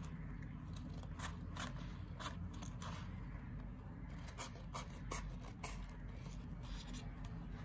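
Scissors cutting through a glitter foam sheet: a quiet, irregular string of short snips and scrapes.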